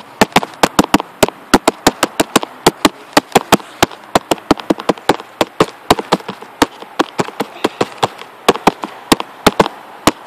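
A rapid, irregular series of sharp clicks, about four to six a second, over a faint hiss.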